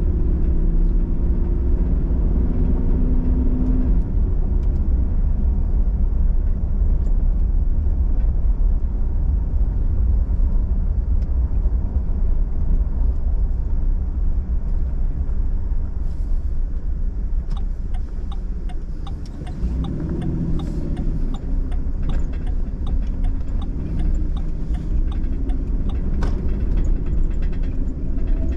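Inside a pickup truck's cab while driving: a steady low rumble of engine and tyres, with the engine note swelling a few times. In the second half a run of sharp clicking rattles joins in, from a tote full of tools shaking in the truck.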